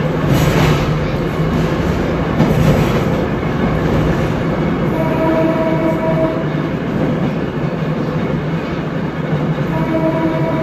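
Electric trolley car running on rail, a steady rumble heard from inside the car as it passes through a tunnel. A horn sounds twice, each time for about a second, once midway and again near the end.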